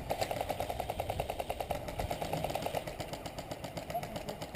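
Airsoft electric gun firing on full auto: a rapid, even rattle, strong for about two and a half seconds and then fainter.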